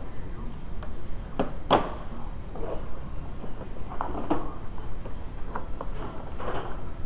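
Hand tools and plastic cowl trim being handled: a few sharp clicks in the first two seconds, the loudest near two seconds in, then softer knocks and rustling.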